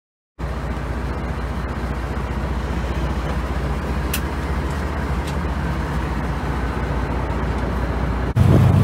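Lobster boat's engine running steadily underway, heard from inside the wheelhouse, cutting in after a moment of silence. Near the end it jumps abruptly louder and rougher, as if out on the open deck.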